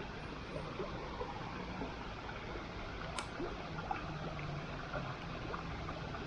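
Campfire cooking sounds: a steady hiss with scattered small crackles and ticks, and one sharper pop about three seconds in.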